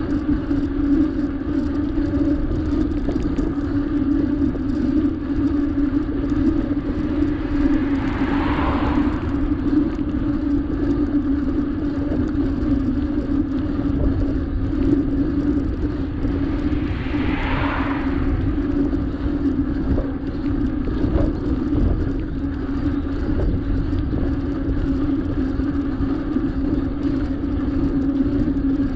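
Wind and road rumble on a camera riding along on a bicycle, with a steady low hum. There are two brief hissing swishes, about 8 and 17 seconds in.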